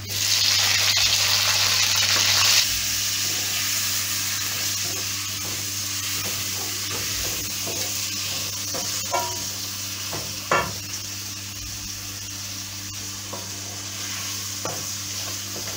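Chopped tomatoes dropped into hot oil and browned onions in a frying pan, setting off a loud burst of sizzling for the first two and a half seconds. After that comes a steadier sizzle as they are stirred with a wooden spoon, with a few knocks of the spoon against the pan.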